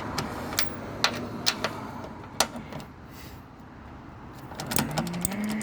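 Scattered sharp metallic clicks and clinks of hand tools working the strut mounting bolts, irregularly spaced and densest in the first couple of seconds. Near the end comes a short, low, slightly rising grunt of effort.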